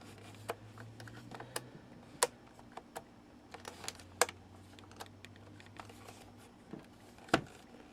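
Scattered sharp plastic clicks and taps from handling a clock radio's buttons, switches and knobs, irregular and a second or so apart, over a faint steady low hum.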